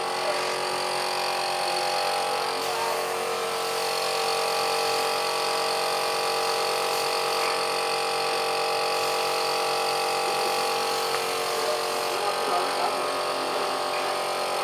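Air compressor running steadily, driving a paint spray gun that hisses as finish is sprayed onto a wooden coffin.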